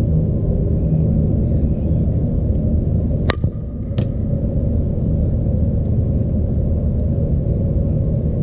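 A softball bat strikes a pitched ball with one sharp crack about three seconds in, and a second, fainter knock follows under a second later. A steady low rumble runs underneath.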